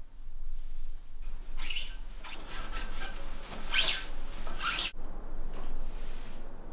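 A few short rubbing, scraping sounds over about four seconds, the last one cut off by a sharp click.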